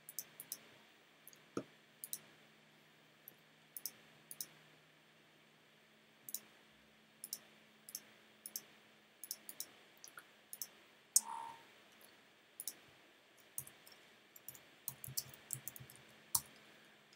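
Faint, irregular clicks of a computer mouse, single clicks every second or so, one louder click about eleven seconds in and a quicker run of clicks near the end.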